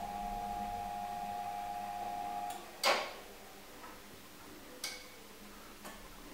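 Hörz tower-clock hand movement (Zeigerwerk), driven by its DCII master clock, running with a steady whine for about two and a half seconds as it advances the hands, then a loud clack as it stops; two fainter clicks follow.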